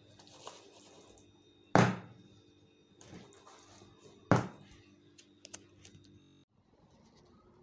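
Metal baking tray knocked down on a stone countertop twice, about two and a half seconds apart, over a faint steady hum.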